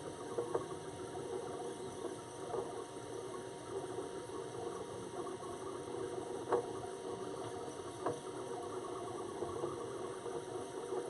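2016 Printrbot Simple 3D printer running a print: its stepper motors hum steadily, constantly speeding up and slowing down under acceleration control, gentle in the corners. A few faint ticks are scattered through.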